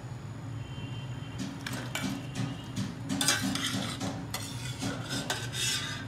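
Perforated steel skimmer scraping and clinking against a steel pot while lifting soaked fried vadas out of water. The clinks come in a run from about a second and a half in, loudest around three seconds in, over a steady low hum.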